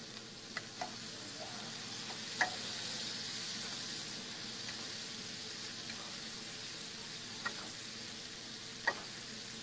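Fish searing in a frying pan in butter and minced shallots, a steady sizzle, with a few sharp clicks of the basting spoon against the pan, the loudest about two and a half seconds in and near the end.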